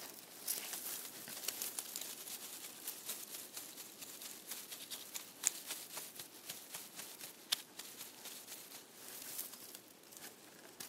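Fine, dry crackling and rustling in dry grass and dead-leaf litter around a ground wasp's burrow, with a few sharper clicks scattered through.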